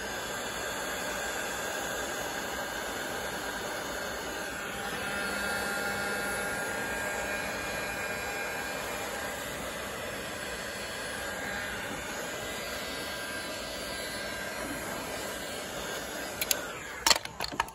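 Electric heat gun blowing hot air at a steady level to shrink heat-shrink tubing over a thermocouple plug. Its fan and air rush stop near the end, with a few sharp clicks.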